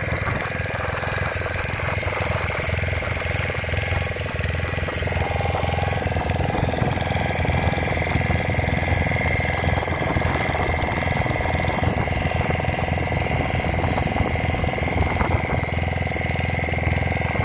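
Fishing boat's engine running steadily, with an even knocking.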